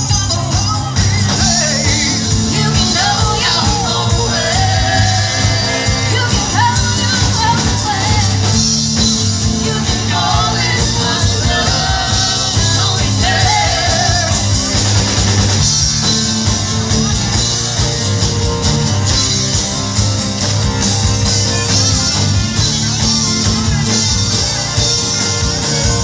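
Live amplified rock band playing: a woman's lead vocal over electric guitars, bass, drums and keyboard, with the singing mostly in the first half and the band playing on with little vocal later.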